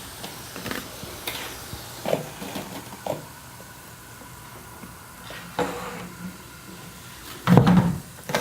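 Scattered light knocks and clicks of a plastic bottle and its cap being handled on a table during a baking soda and vinegar reaction, with a louder burst near the end.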